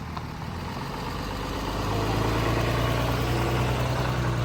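A vehicle engine running with a steady low hum, getting louder about two seconds in.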